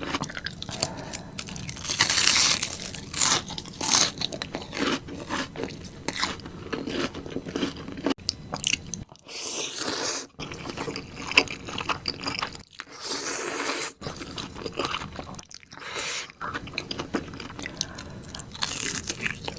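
Close-up eating sounds of a person biting and chewing mandu (Korean dumplings): crunchy bites and many sharp clicks, with a few louder bursts of crunching.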